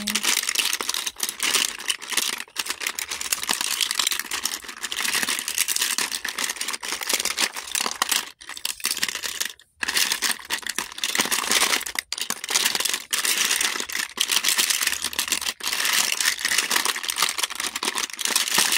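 Plastic lipstick and lip gloss tubes and makeup compacts clattering against each other as a hand rummages through a crowded drawer: a dense run of small clicks and rustles with a few brief pauses.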